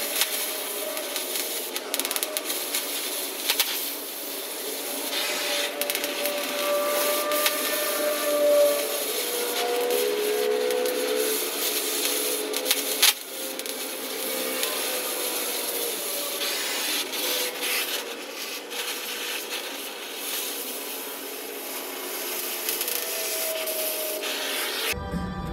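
Hand grinder grinding steel on a bulldozer push arm, a continuous abrasive grinding whose pitch wavers as the disc bears on the metal, with a sharp click about halfway through.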